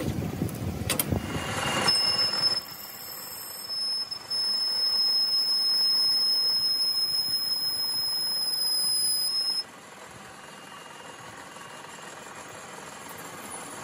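Metal lathe boring out the inside of a spinning metal part. After about two seconds of metal clatter and knocks, the cutting tool gives a steady high-pitched squeal for about seven seconds. The squeal cuts off suddenly, leaving the lathe running with a lower steady hum.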